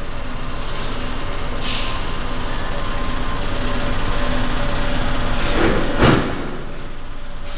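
Vibrating tray of a hair-sorting machine running, a steady mechanical hum and rattle with a fast even pulse. A louder rushing swell builds and peaks about six seconds in.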